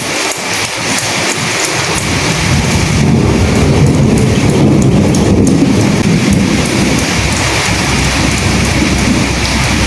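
Steady rain falling, with a low rumble that swells about two seconds in, is loudest through the middle, then eases a little.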